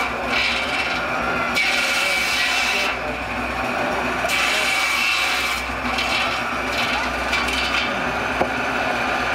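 Steam-driven circular saw bench crosscutting a bundle of logs into firewood: the spinning blade gives a steady whine, broken by two loud cutting passes of a second or so each, starting about one and a half and four seconds in, and a lighter cut later.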